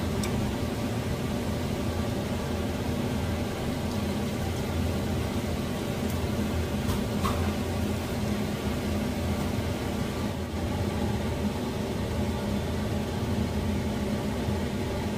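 A steady low mechanical hum, with one faint click about seven seconds in.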